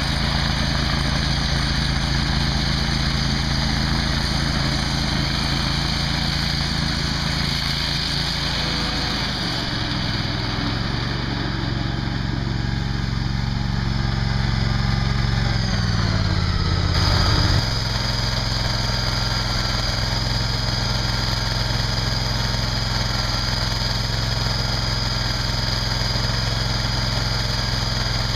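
A 1999 Grasshopper 725K zero-turn mower's 25 hp Kohler gas engine runs steadily while mowing. Its note shifts about a third of the way through and changes abruptly a little past the middle, then holds steady to the end.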